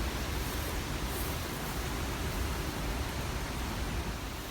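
Steady rushing noise of the Hogenakkal waterfalls and the Kaveri river water, an even roar with a deep rumble.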